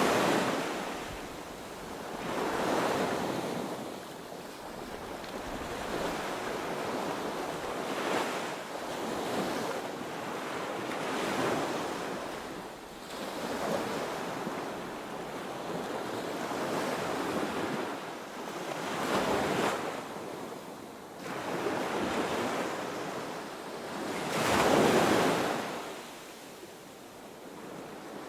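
Ocean surf breaking on a beach: a continuous wash of water noise that swells and falls back with each wave, several waves in turn, the loudest crash coming near the end.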